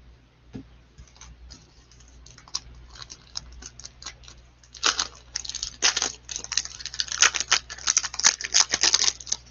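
Trading-card pack wrapper being torn open and crinkled by gloved hands: a few light clicks and rustles, then from about five seconds in a dense, sharp crackling of the wrapper.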